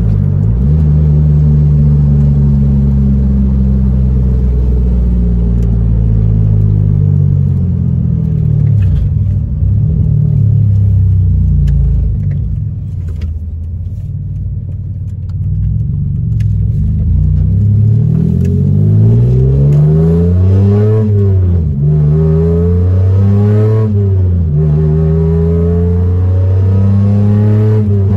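Mitsubishi Eclipse engine heard from inside the cabin while the car is driven hard. It pulls steadily at first and eases off about halfway. In the second half the revs climb and drop several times in quick succession.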